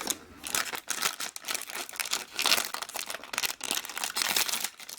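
A blind-bag packet being handled and torn open: irregular crinkling and crackling of the packaging with short tearing sounds.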